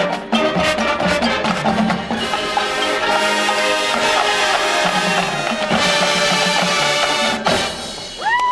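Marching band brass and drumline playing a loud passage with sustained chords over drum and wood-block hits. The music cuts off about seven and a half seconds in, followed by a short rising-and-falling whistle.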